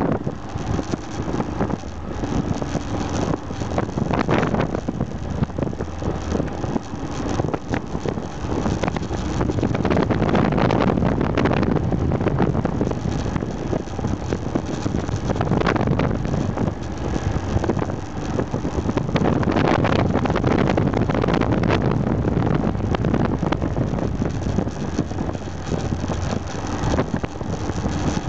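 Aprilia Pegaso 650 Strada's single-cylinder engine running while riding through bends, its loudness swelling and easing several times, with wind buffeting the microphone.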